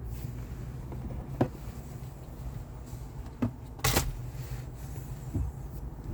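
Low steady rumble inside a 2019 Kia Niro's cabin, with four short clicks and knocks, the loudest about four seconds in. No steady high-pitched brake noise stands out.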